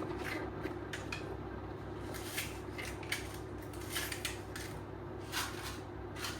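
Light kitchen handling noises: a dozen or so short, soft scrapes and clicks of utensils and baking things being moved about on the counter, over a steady low hum.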